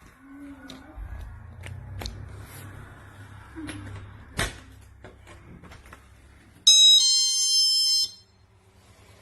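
GE Personal Security window and door alarm sounding: a loud electronic beep about a second and a half long that steps down to a slightly lower tone just after it starts. Before it come handling clicks and knocks.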